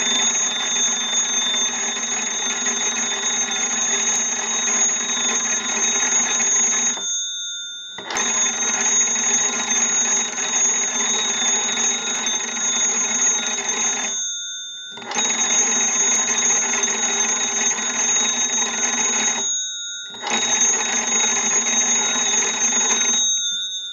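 The original twin gong bells of a Western Electric 317 wooden wall crank telephone ringing as its hand-cranked magneto is turned. There are four long rings with short breaks of about a second between them.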